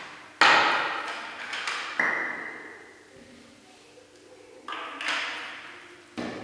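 A series of sharp knocks and clacks of hard objects, each ringing out in a reverberant room; the one about two seconds in gives a short ringing ping.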